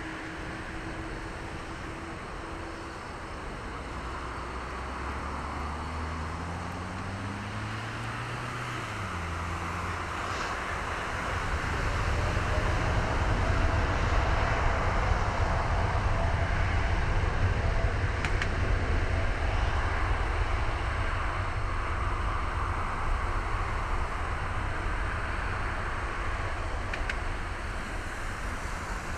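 Boeing 787-8's GEnx-1B turbofan engines spooling up to takeoff thrust: a rising whine over the first several seconds, then a loud low rumble from about eleven seconds in as the jet rolls past on its takeoff run, easing slightly as it moves away near the end.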